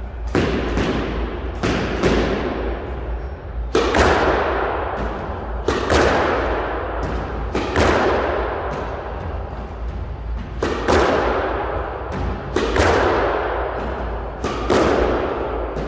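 Squash ball struck again and again with a racket in straight-length drives, each sharp crack of the strings followed closely by the ball hitting the front wall, about every two seconds and echoing around the enclosed court.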